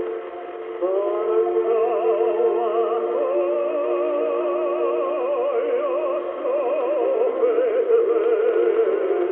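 Sacred music on a longwave AM broadcast: a singing voice with wide vibrato over sustained accompaniment. The sound is thin, cut off above about 4 kHz. A new phrase enters with a rising note about a second in after a short dip.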